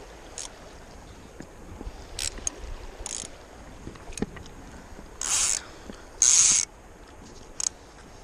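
Fly reel's click-and-pawl drag buzzing in about six short ratcheting bursts as line is wound in. The two longest and loudest bursts come in the second half.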